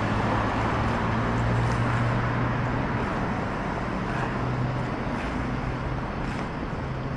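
City street traffic noise: a steady rumble of cars with a low hum underneath.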